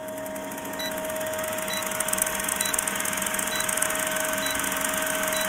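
Film-countdown sound effect: a steady, mechanical film-projector whirr with crackle and a constant hum, and a short faint high beep about once a second as the countdown ticks down.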